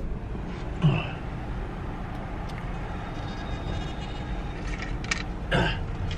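Steady low background rumble, with a short faint sound about a second in and a brief faint voice near the end.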